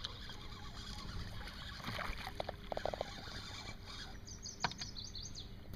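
A northern pike being reeled in alongside an aluminium boat, splashing at the surface, with a few quick knocks and splashes about two to three seconds in over a steady low rumble of wind and water. A few short high chirps and a sharp click follow near the end.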